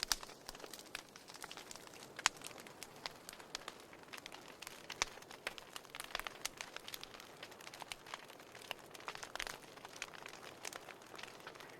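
Wood fire crackling in a fireplace: irregular sharp pops and snaps over a soft steady hiss, with the loudest snap about two seconds in.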